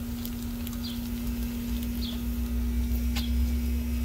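Hash browns frying on a propane flat-top griddle: a steady sizzle with a few sharp pops, over a constant low hum. A few short bird chirps are heard in the background.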